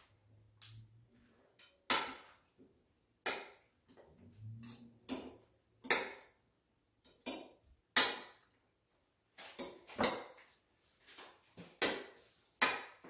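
A metal fork clinking and scraping against a ceramic plate while tossing chopped raw fish salad. There are about a dozen separate sharp clinks at irregular intervals.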